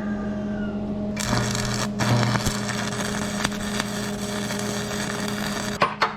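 Welding arc crackling steadily as the deck hanger ears are welded, starting about a second in with a brief break. Near the end, rhythmic rasping strokes begin, about three a second.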